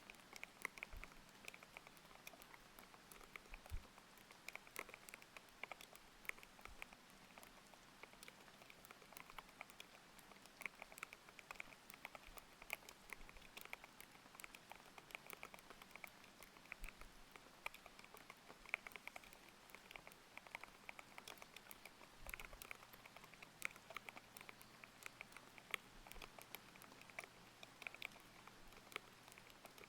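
Continuous typing on a thocky mechanical keyboard with linear Aqua King switches: quick, irregular keystrokes, several a second, over a steady layer of rain.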